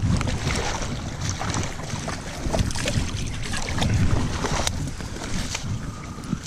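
Wind buffeting a chest-mounted action camera's microphone over the splashing of a hooked landlocked Atlantic salmon at the water's edge. Dry grass rustles and crackles as the fish is dragged up the bank, with many short irregular knocks and splashes throughout.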